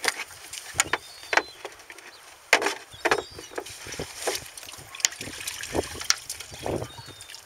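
Irregular knocks and clatter of plastic fish crates being handled and stacked, mixed with the rustle of a fishing net being shaken out. The loudest knock comes about two and a half seconds in.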